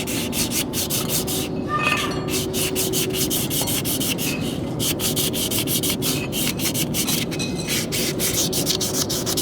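Rapid back-and-forth hand abrading of the inner friction surface of a car's rear brake drum, a continuous scratchy rubbing made of many quick strokes. It is breaking up the glazing on the drum so the brake shoes will grip harder.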